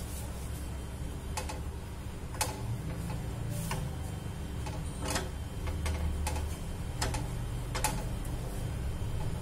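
A spatula tapping and scraping against a non-stick frying pan around a cooking pancake, giving irregular light clicks roughly once a second over a steady low hum.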